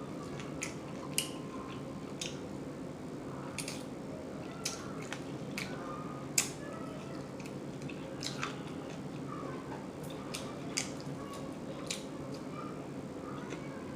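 Close-miked chewing with scattered wet lip smacks while eating lemon pepper chicken wings, the loudest smack about six seconds in. A steady low hum runs underneath.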